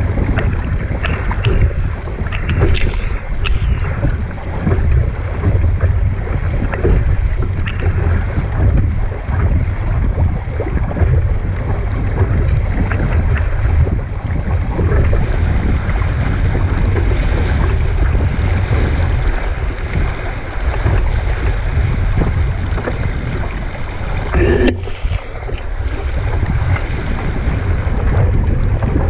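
Wind buffeting the microphone of a camera mounted on a Laser 2 dinghy, over the rush and splash of water along the hull as the boat sails through chop.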